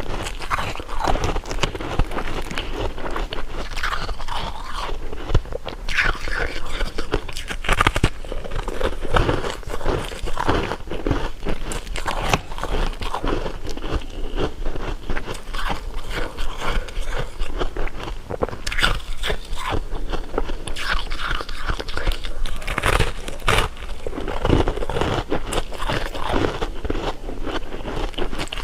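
Close-miked eating of candy and jelly: continuous biting, crunching and chewing, with a dense run of short crackles and crunches.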